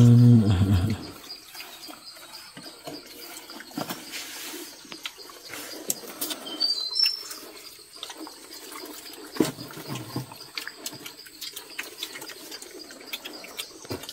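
A man's voice briefly at the very start, then quiet forest ambience with scattered small clicks and knocks. A bird gives a few short high chirps about seven seconds in.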